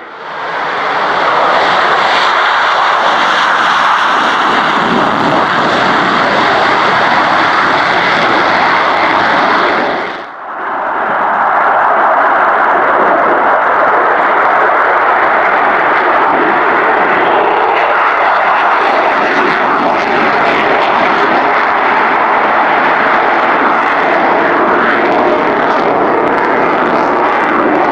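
Military aircraft engines running loud and steady, broken by a brief dip about ten seconds in.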